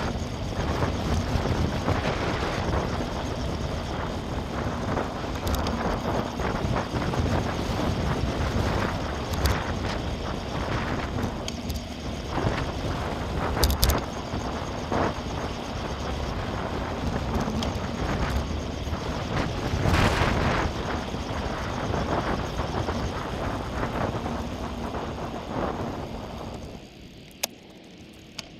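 Bicycle riding noise: wind rushing over the microphone and tyres rolling on tarmac, with a few sharp clicks and rattles. It drops quieter near the end.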